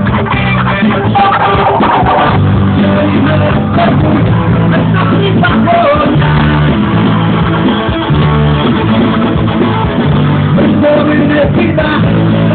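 Loud music led by electric guitar over a bass line and a steady beat, with some singing.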